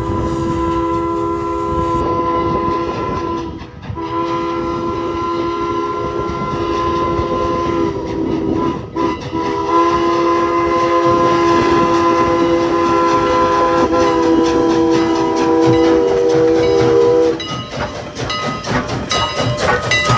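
Steam locomotive chime whistle blowing one long chord of several notes, broken twice by brief gaps. Near the end the whistle stops and a fast rhythmic beating from the moving train takes over.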